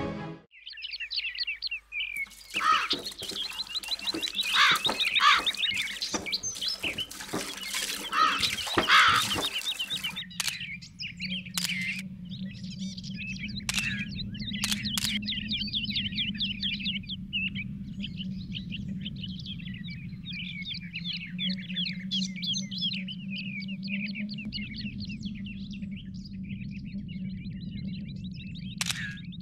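Small birds chirping continuously, busiest in the first third, with a steady low hum underneath from about a third of the way in. A DSLR camera shutter clicks a few times around the middle and again near the end.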